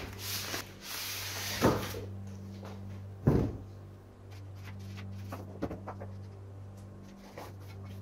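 Paper wrapping of a ream of drawing paper rustling and crinkling as it is pulled open, then two heavy knocks as the paper stack is set down on a wooden desk, the second the loudest, followed by a few lighter taps.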